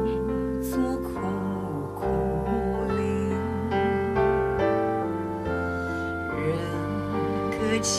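Music with piano and a wavering melody line, played over a hi-fi system driven by 6CA7 valve mono block power amplifiers.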